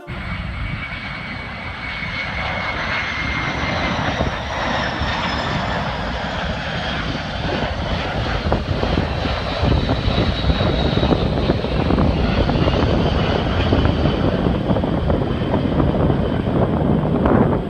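Jet engines of a DC-10-30 airliner-turned-air tanker on a low pass, the three turbofans giving a heavy rushing noise that grows steadily louder. A high turbine whine slowly falls in pitch.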